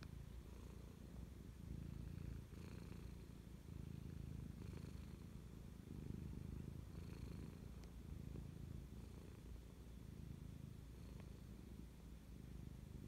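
Domestic cat purring, a low steady rumble that swells and eases with each breath, about every one and a half to two seconds.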